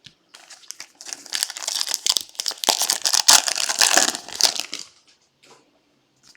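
Foil trading-card pack wrapper crinkling as it is handled and crumpled: a dense crackle that starts about a second in and stops about four seconds later.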